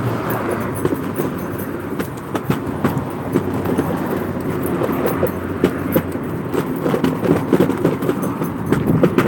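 Wheeled rig pulled by a husky team rolling fast over a concrete sidewalk: a steady rolling rumble with frequent small clicks and rattles.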